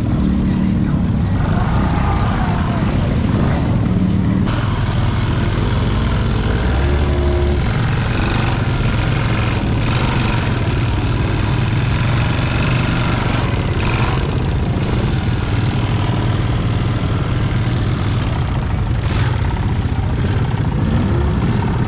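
Off-road ATV engine running steadily with a continuous low drone, broken by a few brief knocks along the way.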